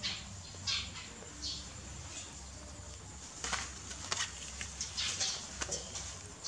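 A string of short, irregular rustles and scuffs from a baby monkey climbing a metal frame and brushing against plastic bags.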